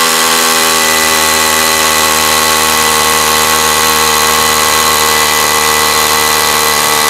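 Makita 40V XGT cordless rotary hammer drilling a 14 mm hole into concrete with an SDS-plus bit, running steadily at full power without a break. The bit sinks in quickly without bogging down under load.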